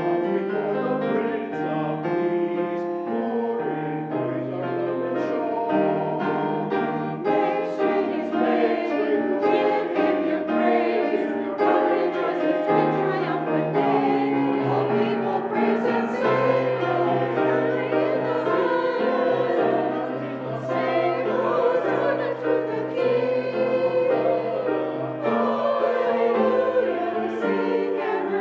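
Church choir singing a sacred anthem with piano accompaniment.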